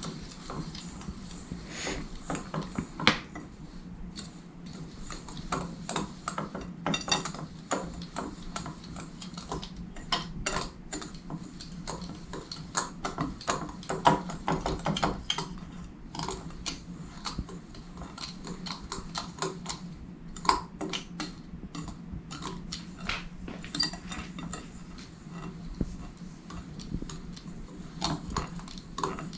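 A utensil stirring dry almond flour, sugar and salt in a mixing bowl, with irregular clinks and scrapes against the bowl throughout, over a steady low hum.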